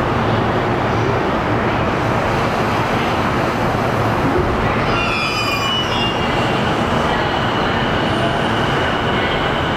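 Keihin-Tohoku Line E233-series electric commuter train running along the line, heard from inside the car as a steady rumble. A brief high-pitched squeal from the wheels comes about halfway through.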